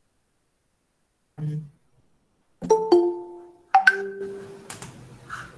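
A computer notification chime: two quick marimba-like notes about two and a half seconds in, then another pair about a second later, each ringing briefly and fading. This is the Google Meet alert for people asking to join the call. A few faint clicks follow near the end.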